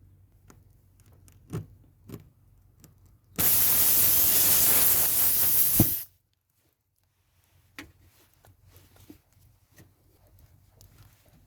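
A loud, even spray hiss lasting about two and a half seconds, starting and stopping abruptly, amid light handling clicks and knocks.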